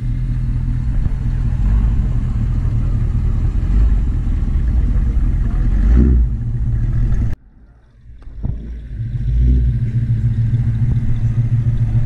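Hot-rod pickup truck's engine running with a steady low rumble as the truck drives off across the grass. It cuts out abruptly a little past halfway and builds back up about a second later.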